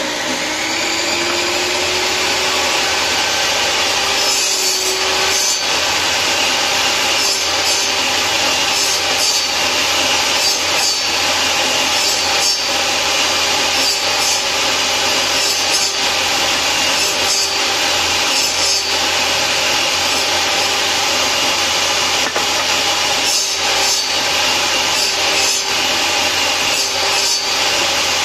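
Table saw running, its motor note rising as it comes up to speed over the first couple of seconds, then holding steady. Repeated cutting passes through pine boards bite in every few seconds as tenons are cut on the ends of the frame pieces.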